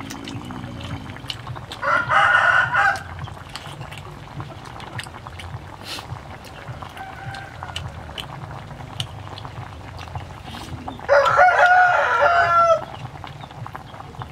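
A rooster crowing twice, once about two seconds in and again near the end, with a fainter call in between. Small clicks scatter through the rest.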